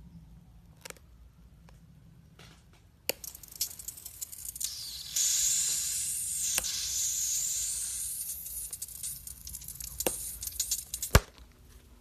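A slime-filled stress ball being cut open: a few faint clicks, then from about three seconds in a wet crackling and tearing, with a loud steady hiss in the middle, and a sharp click near the end.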